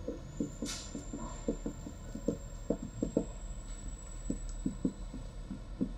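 Light, irregular taps and knocks of writing an equation on a board, about two or three a second, over a faint steady high whine.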